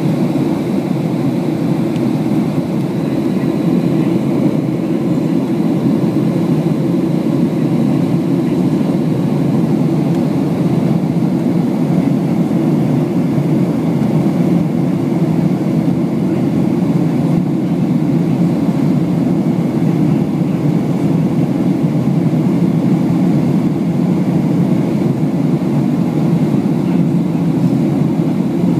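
Steady cabin rumble of a Boeing 757-200 climbing after takeoff: the jet engines and rushing airflow heard from inside the cabin at a window seat by the wing. A faint high whine fades out in the first few seconds.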